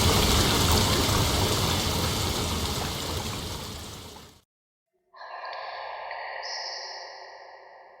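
Steady heavy rain that fades out over about four seconds and then cuts to silence. About a second later a different sound with a few distinct pitched bands starts suddenly and fades away.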